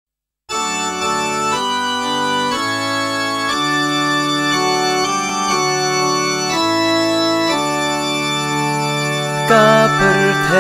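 Slow hymn tune played as sustained organ chords, the chord changing about once a second. Near the end a louder, wavering melody line enters above the chords.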